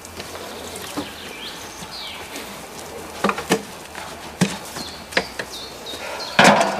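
Knocks and clunks of a metal washtub being handled and carried, ending in a loud thump as it is set down on a box near the end. Faint high chirps run behind.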